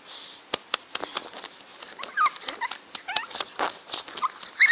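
A pug puppy whining in short, high squeaks, several times over, while its paws scratch and tap at a couch cushion as it tries to climb up. The loudest squeak comes near the end.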